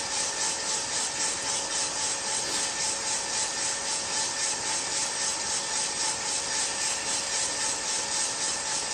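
Aillio Bullet drum coffee roaster running mid-roast: 2 pounds of beans tumbling in the turning drum with the fan going, a steady rustling hiss with a faint even pulse and a low hum. No cracks yet, so the beans are still short of first crack.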